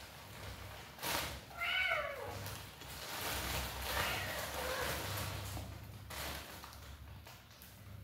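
Kitten meowing: a clear falling meow about a second and a half in, then a fainter, longer meow around four seconds in. Just before the first meow there is a brief rustle as the kittens scuffle in the coir rope.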